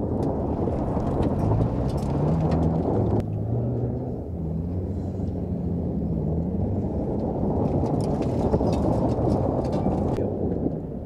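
Toyota Tacoma i-FORCE MAX hybrid's 2.4-litre four-cylinder engine revving as the pickup drives hard over loose gravel and dirt, its pitch rising and falling, with scattered ticks of gravel.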